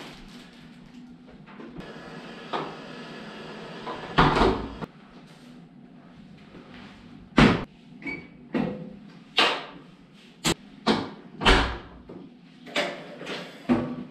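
Laundry being handled at commercial Electrolux front-loading washing machines: rustling of clothes and a bag, then a heavy thud about four seconds in. A run of sharp clunks and knocks follows from machine doors and handling, with a couple of short beeps from the control panel around eight seconds.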